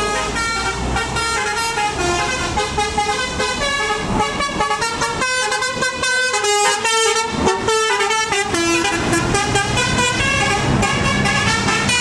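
Multi-tone telolet bus horn playing a fast tune, note after note in quick steps, over the bus's diesel engine running.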